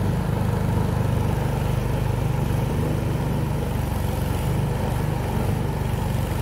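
A motorboat's engine running steadily at an even speed while under way.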